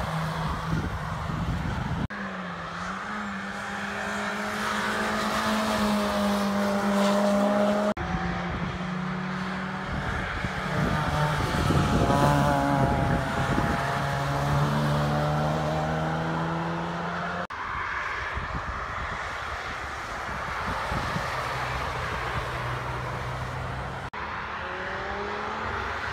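Road cars driving past one after another on a wet race track, among them a BMW Z4 roadster and an Audi A6 Avant. Each engine pulls and changes pitch as the car goes by. The sound jumps abruptly between passes every few seconds.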